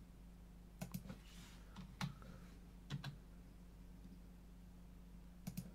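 Faint, sparse clicks of a computer keyboard and mouse, about one a second with a pair near the end, made while stepping frame by frame and dragging mask points. A steady low hum runs underneath.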